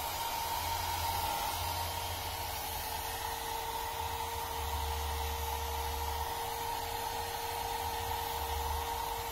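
Handheld hair dryer running steadily: a hiss of blown air with a steady motor whine, and a low rumble that comes and goes as the dryer is moved over a cat's fur.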